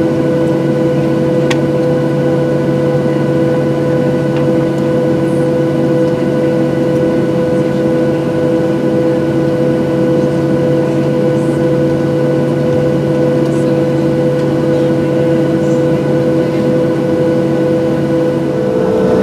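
Steady hum of a Boeing 737-700's engines and air system heard inside the passenger cabin, a drone made of several steady tones. Near the end the tones change: the lowest one stops and another drops slightly in pitch.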